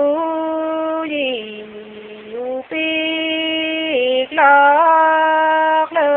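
A woman singing a Nùng folk song (hát Nùng) unaccompanied, holding long notes that step and slide between pitches, with brief breaks between phrases.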